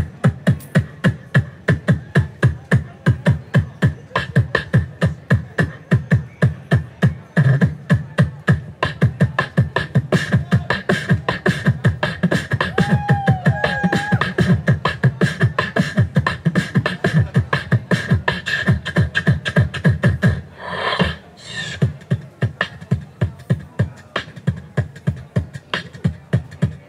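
Solo beatboxing into a handheld microphone, all from the mouth with no effects: a fast, steady beat of about three to four hits a second over a held low bass note. About 21 seconds in, the beat breaks briefly for a hissing burst before it picks up again.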